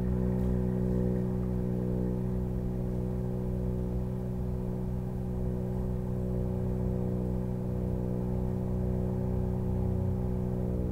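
French horn holding one long, steady pedal F sharp, a very low note with a full set of overtones. It is played as a soft, held-as-long-as-possible recovery tone for the lips after interval exercises.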